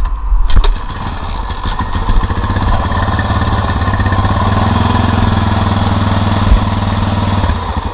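Air-cooled single-cylinder four-stroke engine of a 1988 Honda TRX300 Fourtrax ATV running on its just-rebuilt carburetor. A few sharp knocks come first, then the engine runs. It revs up and holds higher through the middle, then drops back to a lumpy idle near the end.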